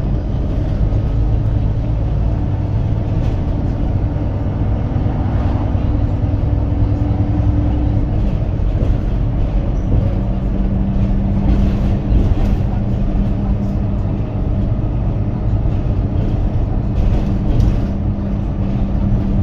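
Alexander Dennis Enviro 300 single-decker bus on the move: a steady diesel engine drone under road rumble, with the engine note shifting a few times as the bus speeds up and eases off.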